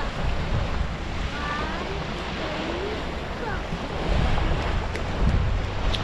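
Wind buffeting the microphone over the wash of small waves breaking on a sandy shore, with children's voices calling out briefly in the first half.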